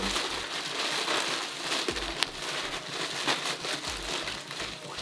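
A shipping package being ripped open by hand, its wrapping tearing and crinkling continuously, with one sharper snap about two seconds in.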